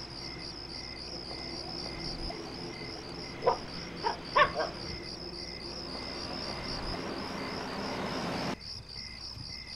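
Crickets chirping in a steady pulsing trill, with a dog barking about four times near the middle. A hissing rush of noise swells toward the end and cuts off suddenly.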